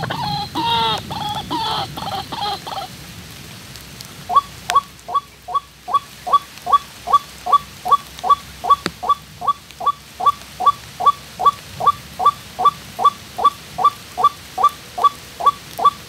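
White-breasted waterhen (ruak-ruak) calling. From about four seconds in comes a steady run of short falling notes, about two and a half a second. The first few seconds hold a brief bout of rougher, varied calls.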